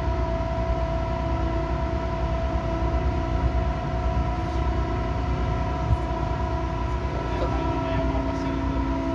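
Steady engine drone of a passenger boat underway, a low rumble with a few steady hum tones over it.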